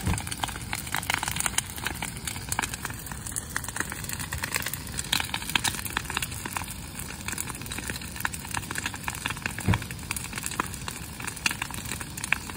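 Brush-pile bonfire crackling steadily with many sharp snaps and pops, one louder pop about ten seconds in.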